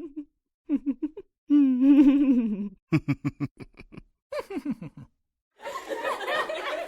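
A string of separate laughter clips: single voices laughing in short bursts, one a quick run of staccato "ha-ha" pulses, then from a little past halfway a denser laugh of several people together.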